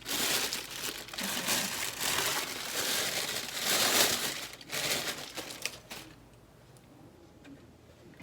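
Packaging crinkling and rustling as new coilover parts are handled and unwrapped, dense for about six seconds, then dying down to faint handling noise.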